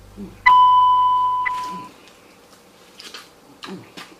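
A single bright electronic ding, one clear tone that strikes about half a second in and fades away over about a second and a half.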